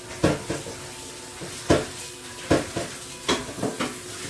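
Metal dishes and a steel bowl knocking and clanking irregularly in a stainless-steel sink as green chili peppers are washed, over a steady hiss of running tap water.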